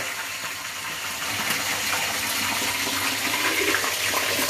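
Crab shells and claws frying in hot oil in a cooking pot: a steady sizzling hiss that swells a little about a second in.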